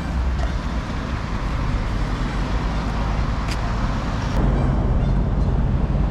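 Car driving along, a steady low road and engine rumble that gets a little louder about four seconds in, with a couple of faint clicks.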